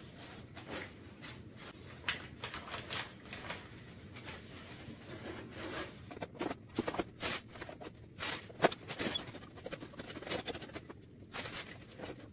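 Plastic packaging crinkling and cardboard rustling and scraping in irregular bursts as cymbals and a stand are unpacked from cardboard boxes, with a few sharper crackles about two-thirds of the way through.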